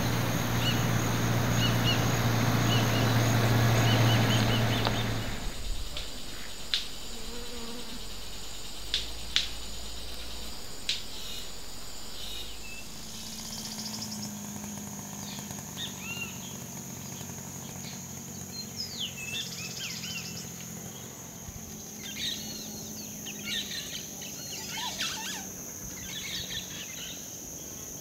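Tropical forest ambience. A loud low buzz fills the first five seconds, with a steady high insect drone underneath throughout; after a few sharp chirps, birds start calling about halfway through with short whistled notes that slide up and down.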